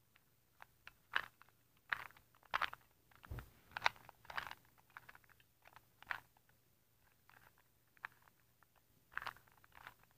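Plastic 2x2x2 Rubik's cube being turned by hand: irregular clicks and clacks of the layers rotating, in quick clusters with short pauses between.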